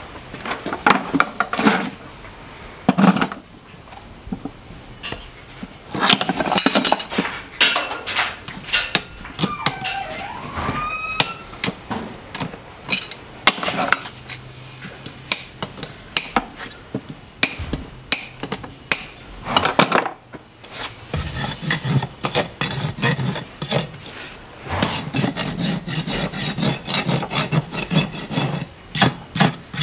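Farrier's hand tools working a horse's hoof: a series of sharp knocks and clicks, then from about twenty seconds in, rhythmic strokes of a hoof rasp across the hoof.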